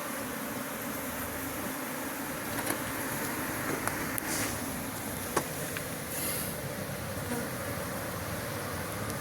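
Bees buzzing in a steady, continuous hum, with a few short clicks or knocks around the middle.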